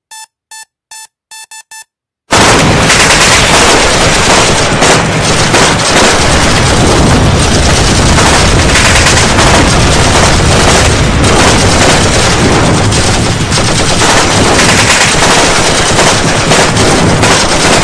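A quick series of short electronic beeps, then from about two seconds in a long, loud stretch of rapid machine-gun fire sound effect that runs unbroken and cuts off suddenly at the end.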